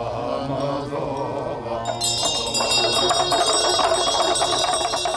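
Low Buddhist prayer chanting, joined from about two seconds in by a dense ringing of chimes that stays over it.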